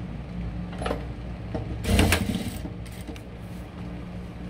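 Industrial sewing machine stitching bias binding onto a garment's neckline: a steady low hum, with a click about a second in and a short noisy burst about two seconds in, the loudest sound.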